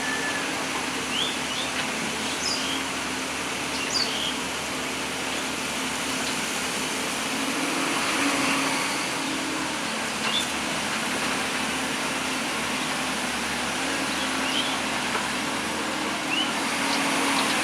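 Hydraulic excavator's diesel engine running steadily with a low drone, and birds chirping briefly now and then.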